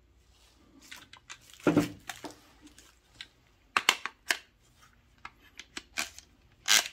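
Handling noises from a Milwaukee M18 FTR cordless trimmer, its motor not running: scattered clicks, knocks and short scrapes of its plastic housing and base as it is turned over and the base is worked on. The loudest knocks come about two seconds in, around four seconds in, and near the end.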